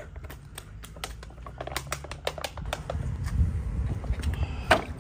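Irregular sharp clicks and crackles from a soft plastic collapsible water bag being handled and flip-flops on the pavement, with a low rumble a few seconds in and one louder click near the end.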